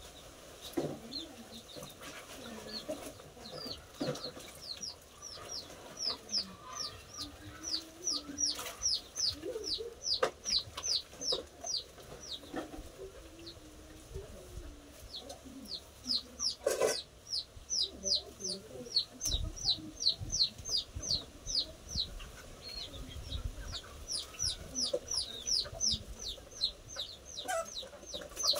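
A bird repeats a quick, high, downward-sliding note about four times a second in long runs. Chickens cluck low in the background. Now and then there is a sharp clink, like dishes or a basin being knocked during washing.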